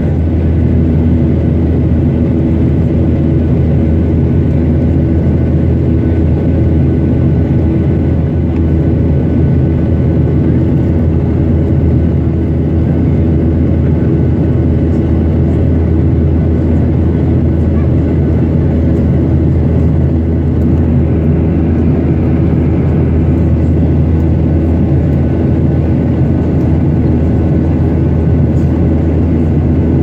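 Steady low engine drone with an unchanging hum.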